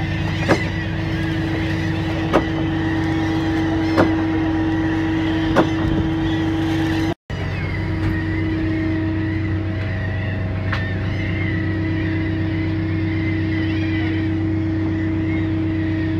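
A fishing boat's engine running steadily with a constant hum, and four sharp knocks about a second and a half apart in the first half. The sound cuts out briefly about seven seconds in.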